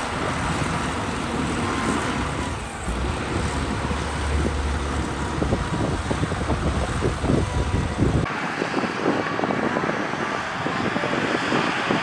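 Liugong B160C crawler bulldozer's diesel engine running under load while pushing a mound of soil, with a deep rumble and irregular clanking. About eight seconds in, the sound cuts to another bulldozer working farther off: thinner, without the deep rumble.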